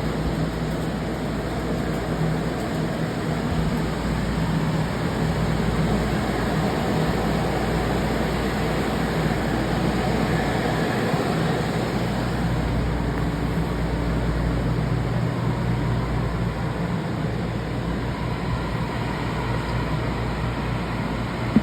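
Restoration air movers and dehumidifiers running together: a steady whir of fans with a low motor hum, drying out flood-damaged rooms.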